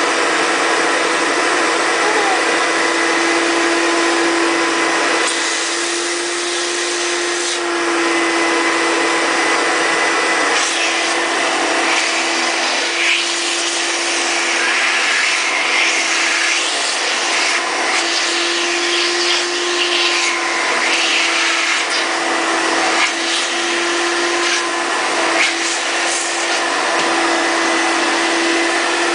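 Vacuum cleaner running steadily with a constant motor whine, its sound shifting briefly and irregularly now and then through the middle.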